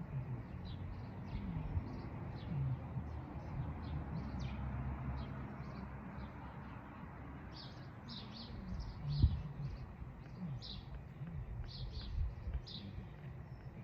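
Small birds chirping repeatedly, with a single sharp thump about nine seconds in.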